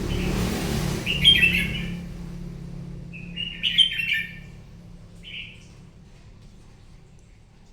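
Red-whiskered bulbul singing: two short warbled phrases about two seconds apart, then a single brief note, over a low hum that fades away.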